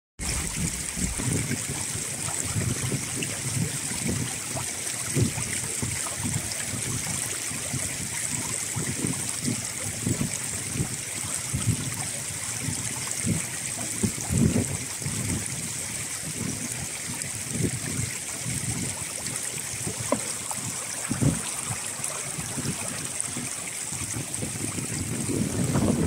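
Shallow, fast-flowing stream running over pebbles: a steady rushing and trickling of water, with uneven low rumbles underneath.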